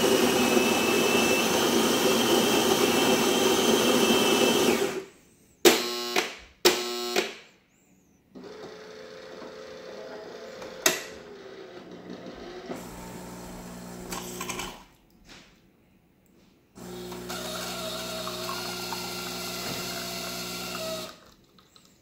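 Saeco Vienna Plus super-automatic espresso machine making a shot. Its built-in burr grinder runs loudly for about five seconds, then the brew unit motor gives two short whirs. A quieter steady hum of the pump follows, with a pause about fifteen seconds in, then a second stretch of pump hum as the espresso is extracted, stopping shortly before the end.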